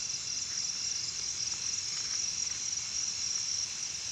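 A steady chorus of crickets chirring, a continuous high, rapidly pulsing trill with no break.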